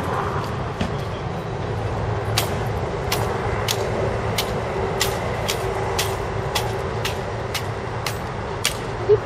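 Steady hum of road traffic or an idling vehicle engine, with sharp, evenly spaced clicks about twice a second starting about two seconds in.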